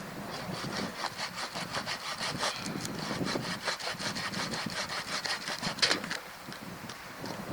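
Hand saw cutting through wood with quick, even back-and-forth strokes, stopping about a second before the end.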